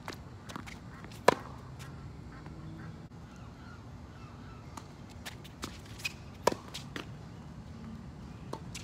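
Tennis ball struck by rackets during a rally, with sharp loud hits about a second in and again about six and a half seconds in, and fainter hits and bounces between them.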